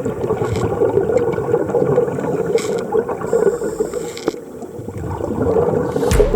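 Water gurgling and bubbling continuously, typical of underwater camera audio during a scuba dive.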